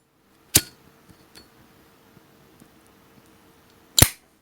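Metallic clicks of a Zippo lighter's hinged lid snapping: two sharp ones with a short ring, about half a second in and near the end, with a few faint ticks between.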